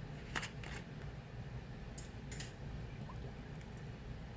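About four light clicks and rattles of kitchen items being handled, such as an oil bottle and pan, over a low steady hum.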